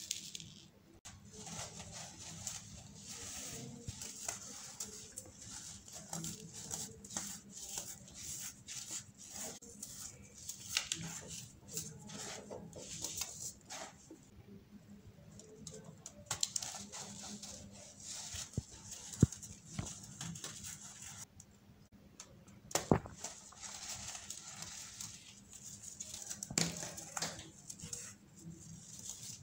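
Hands crushing pressed baking soda cups into loose baking soda powder: irregular soft crunching, crumbling and squeaky packing of the powder, with a couple of sharper cracks in the second half.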